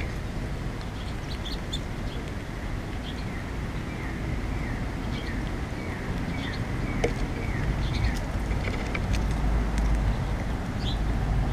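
Small birds chirping, a run of short falling calls about two a second, over a steady low background rumble, with a few sharp clicks in the second half.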